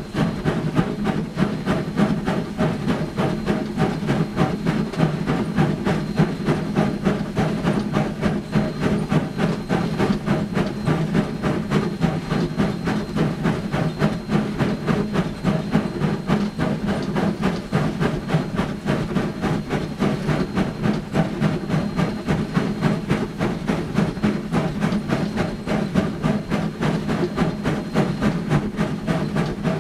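Sierra Railway No. 3, a 4-6-0 ten-wheeler steam locomotive, working hard upgrade as she gets back up to speed: a steady, rapid run of exhaust beats from the stack ("stack talk"), heard from inside the cab along with the locomotive's steam and running gear.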